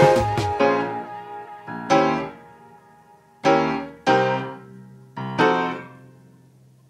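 Background music: slow piano chords, struck about five times, each left to ring and fade.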